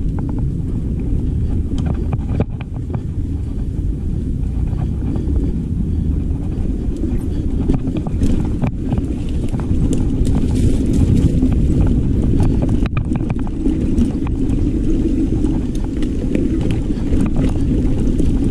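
Mountain bike riding over a rough trail: wind buffeting the camera microphone in a steady rumble, with occasional sharp knocks and rattles from the bike over the ground.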